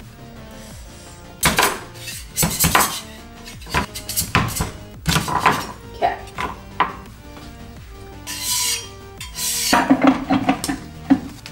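Metal scraper scraping and clicking against a resin 3D printer's build plate as cured resin prints and their raft are prised off, in a series of short, irregular scrapes with a longer hiss of scraping a little past halfway.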